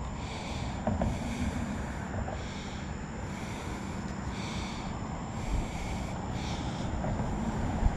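Low rumbling wind noise on a chest-mounted microphone, with a few soft knocks as a speared suckermouth catfish and the dart's string are handled. Behind it a high chirring chorus pulses about every two seconds.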